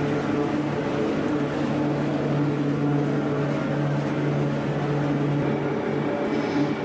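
Running factory machinery giving a steady mechanical drone: a low hum with a few constant tones above it.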